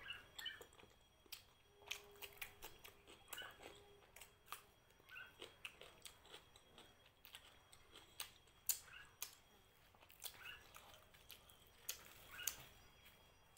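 Close-up mouth sounds of someone eating luchi dipped in curry: wet chewing with irregular sharp lip smacks and clicks.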